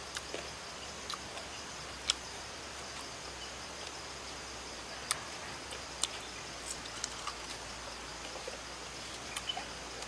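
Steady high chirring of crickets and other insects, with a handful of short, sharp crunches and clicks from chewing crisp fried palm worms.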